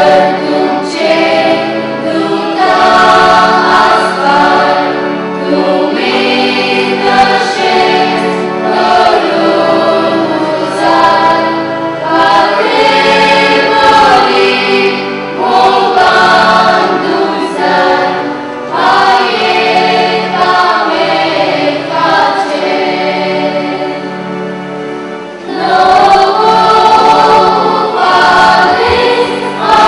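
Church choir singing a hymn, with long held notes. The singing drops to a brief lull near the end, then comes back fuller.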